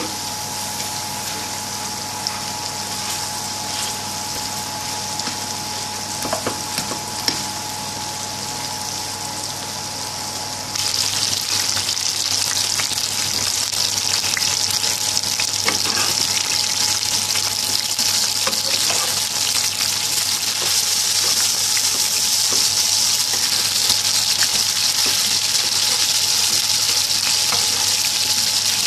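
Beef burger patties sizzling in hot oil in a non-stick frying pan. The sizzle steps up suddenly louder about a third of the way in, and a few sharp clicks come before that.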